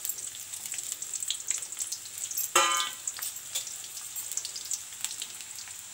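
Sliced onions sizzling and crackling in hot oil in a kadhai, just after being added, with many small pops throughout. About two and a half seconds in there is one brief pitched sound.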